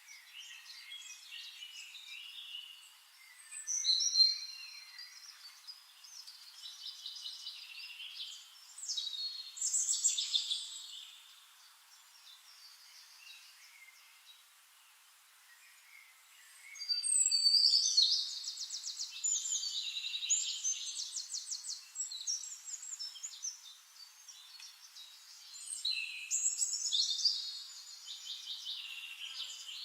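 Small birds singing high-pitched warbling phrases and rapid trills in separate bursts, with quieter gaps between them; the loudest, longest stretch of trilling comes a little past halfway.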